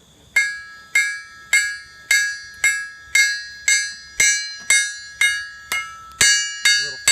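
Blacksmith's hammer striking hot steel on an anvil in a steady rhythm, about two blows a second, each blow leaving a bright metallic ring that fades before the next.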